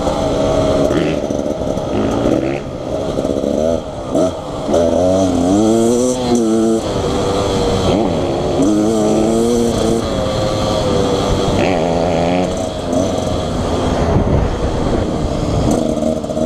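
Dirt bike engine running under riding load, its pitch rising and falling several times as the throttle is opened and closed.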